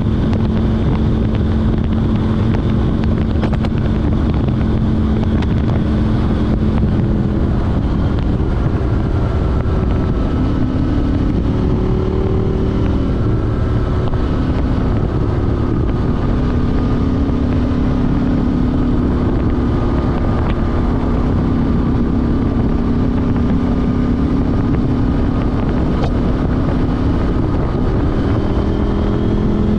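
KTM 790 Duke's parallel-twin engine through an Arrow Race-Tech exhaust with a de-cat pipe, running at steady riding revs, its pitch dipping and rising gently a few times, with wind rushing past.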